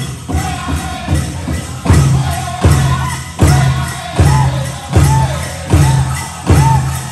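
Powwow drum group singing over a big drum struck in a steady beat, about one hit every three-quarters of a second, the hits turning much harder from about two seconds in. Dancers' bells jingle along.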